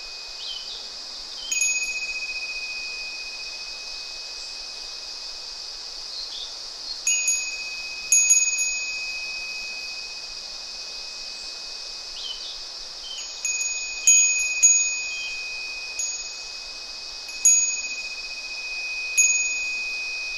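Japanese wind bell (fūrin) struck by its clapper about ten times at irregular intervals, sometimes two or three in quick succession. Each strike rings out in one clear high tone that slowly fades. Faint bird chirps come in now and then over a steady high hiss.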